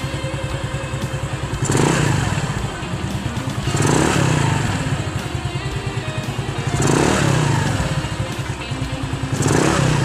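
Motorstar 150N scooter's GY6 150cc single-cylinder four-stroke engine idling, its throttle blipped four times, every two to three seconds.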